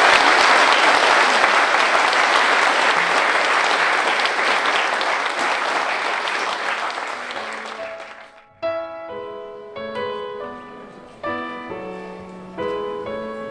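An audience applauding, loud at first and slowly dying away over about eight seconds. After a sudden short break, slow instrumental music of single notes, each struck and fading, runs to the end.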